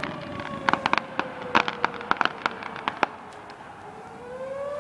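Fireworks crackling: a cluster of sharp cracks and pops between about half a second and three seconds in. Under them a siren wails, its pitch slowly falling, then rising again near the end.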